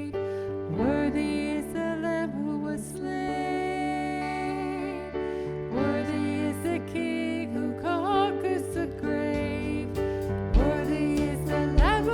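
Contemporary worship band music, with sustained keyboard-and-guitar chords under a gliding melody line. Heavy bass drum hits come in near the end.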